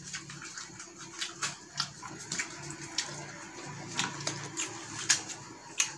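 Close-up eating sounds from a person eating bakso soup: wet chewing and mouth smacks, with many scattered sharp clicks.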